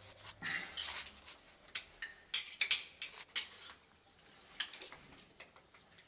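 Small screwdriver clicking and scraping against a wall socket's metal terminals and plastic frame while it is wired: a busy, irregular run of clicks for about three seconds, then a few scattered ones.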